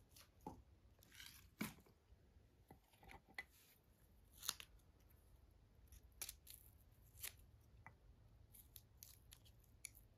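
Papery skin being peeled and torn off fresh garlic cloves by hand: faint, irregular crackles and small tearing sounds.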